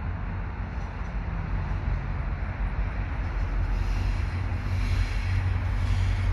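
Via Rail passenger train led by an F40PH-2 diesel locomotive: a steady low engine hum over rail noise, growing slowly louder as it approaches.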